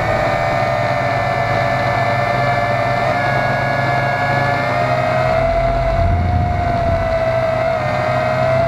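Tarantula quadcopter's electric motors and propellers whining steadily in flight, heard close up from a camera on the frame. The pitch wavers slightly as the throttle changes, over a low rumble.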